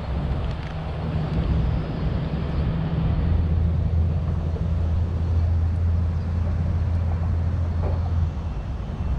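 A low, steady engine drone, strongest from about three to eight seconds in, over a background of wind-like noise.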